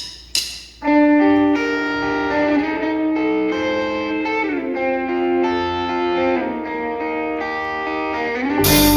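Music: a few sharp hits, then sustained chords that change every second or two, with a loud crash near the end.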